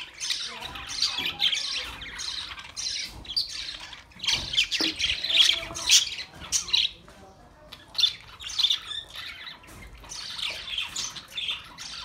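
A flock of budgerigars chattering: a dense run of quick, high chirps and warbles that drops briefly quieter about seven seconds in, then picks up again.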